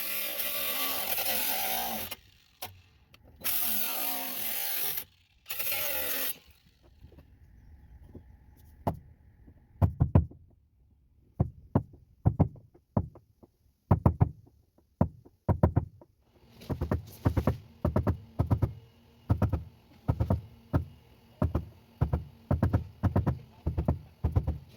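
A power tool runs in three short bursts. Then come hammer blows on the pickup's sheet-metal roof as a dent is worked out, scattered at first, then a steady two or so a second.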